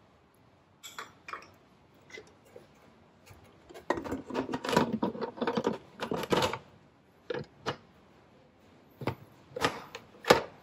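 The lid of a Noxxa electric pressure cooker being set on the pot and twisted shut, with a run of plastic-and-metal clattering and scraping. It is followed by several separate sharp clicks as the lid locks and the pressure knob is turned to its pressure setting.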